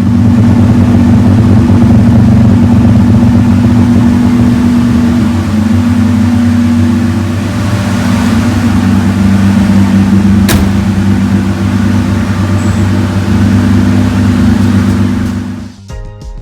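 Austin-Healey 3000's inline-six engine running just after a cold start, held on choke and throttle, steady with small rises and dips in speed. A single sharp click about ten seconds in, and the engine sound cuts off near the end.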